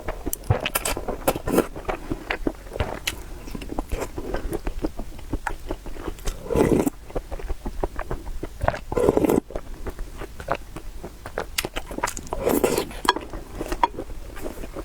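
Close-up eating noises of noodles and meatballs being chewed: a steady run of wet mouth clicks and smacks, with a few longer, louder mouthfuls about six, nine and twelve seconds in.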